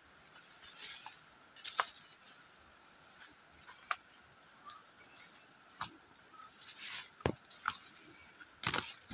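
Footsteps through forest undergrowth: irregular crunches and snaps of leaf litter and twigs underfoot, with leaves brushing past. The loudest crunch comes near the end.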